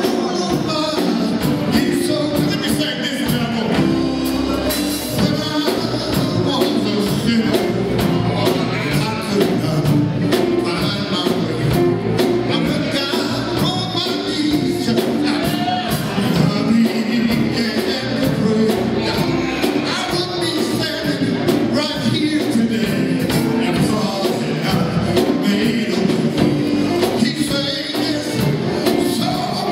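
A live band plays, with electric guitars, bass guitar and drums, while a man sings lead into a microphone.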